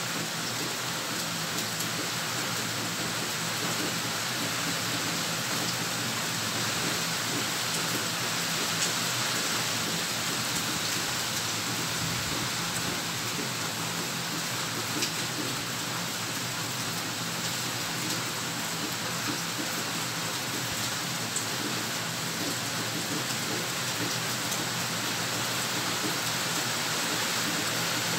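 Heavy rain falling steadily, an even hiss of rain with a few sharper drop ticks here and there.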